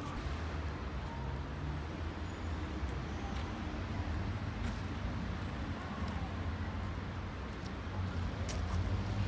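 Steady low rumble of town road traffic, with a few faint clicks.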